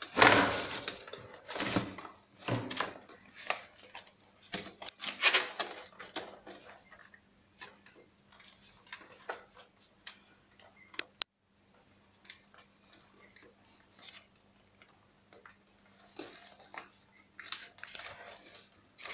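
Puppies scrambling over each other in a plastic tub, their claws scratching and clicking on the plastic and rustling the newspaper bedding in irregular bursts. The sounds come thickest at the start and again near the end.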